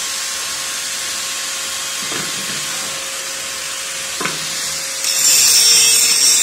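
Handheld angle grinder running with a steady whine, with two knocks along the way; about five seconds in the disc bites into the steel and a loud, harsh grinding hiss takes over as it grinds the base plate where the steel rod stands.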